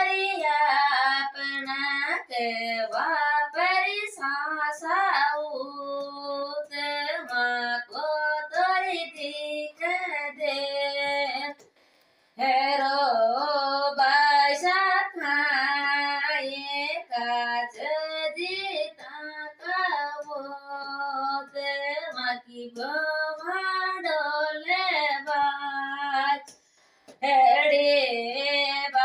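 A woman singing a bhajan (Hindi devotional song) solo and unaccompanied, in long sung phrases with two brief pauses, about twelve seconds in and near the end.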